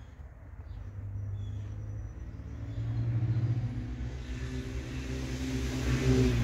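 A motor engine's low rumble, growing steadily louder.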